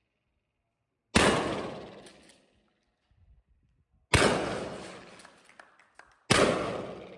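Three shots from a Remington pump-action shotgun, about three and then two seconds apart, each echoing and dying away over more than a second in an enclosed range. Faint clicks come between the shots as the action is worked.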